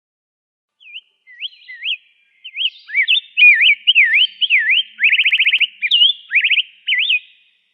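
Rose-breasted grosbeak singing: a warbled phrase of quick whistled notes sliding up and down, starting about a second in, with a fast trill of about ten notes in half a second midway through.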